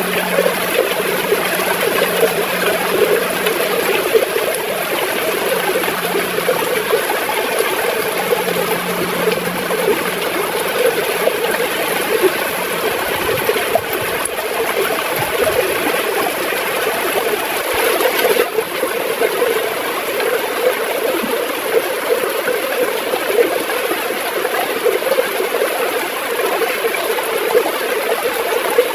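River water gurgling in a steady, continuous flow.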